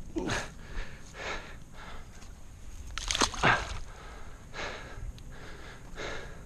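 A man's short, heavy breaths and snorts, several in a row, as he crouches at the water's edge releasing a carp. A louder, noisy burst comes about three seconds in.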